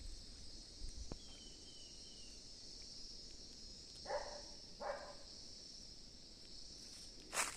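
A steady high chorus of insects chirring, with two short calls from another animal about four seconds in and a sharp click near the end.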